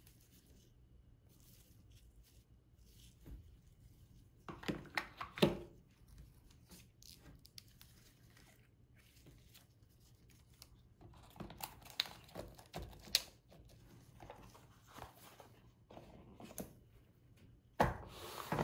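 Gloved hands handling a new smartphone, its charger and the packaging. There are short bursts of plastic and cardboard handling noise about four seconds in, around twelve seconds in, and near the end.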